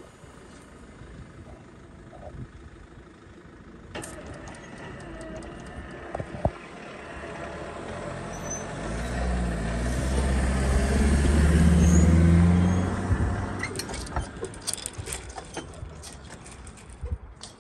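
A road vehicle's engine grows louder and passes close by, loudest about twelve seconds in, as traffic starts across the level crossing after the barriers rise. Sharp clicks and rattles follow near the end, as vehicles cross the rails.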